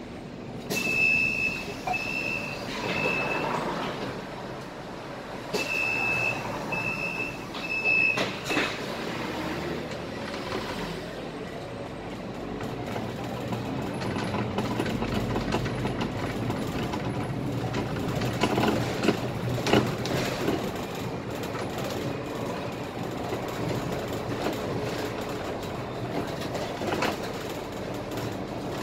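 Scania K320 IA articulated city bus driving, heard from the driver's cab: steady engine and road noise with occasional knocks and rattles of the body. In the first ten seconds there are two runs of three short, high electronic beeps.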